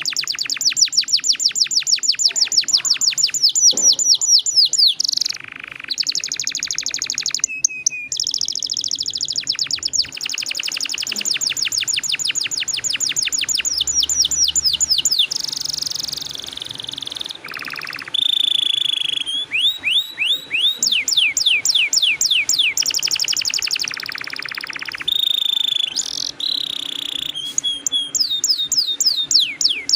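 Domestic canary singing a long rolling song: fast trills of rapidly repeated high notes, switching to a new trill every few seconds with barely a pause.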